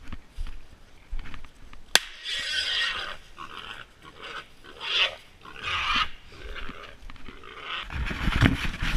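Feral hog squealing in several harsh bursts while catch dogs hold it. Heavy thumps and rustling in the brush come near the end.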